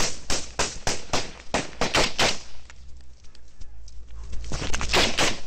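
Small-arms gunfire in a firefight: a rapid string of shots, about four a second, for roughly two seconds, then a lull and another quick cluster of shots near the end.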